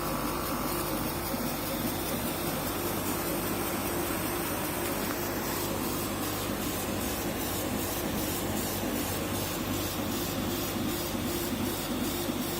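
KAMACH 1060 CO2 laser cutter-engraver at work: a steady hiss with a low hum. From about halfway through, an even, rapid pulsing joins the hiss as the machine works.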